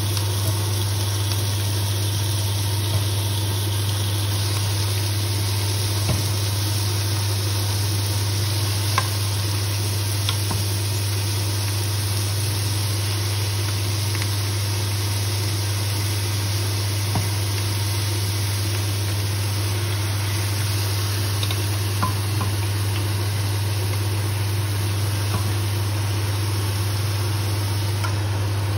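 Marinated pork belly pieces frying with onions in a pot, a steady sizzle over a constant low hum, with a few light clicks of a metal spoon against the pot and bowl.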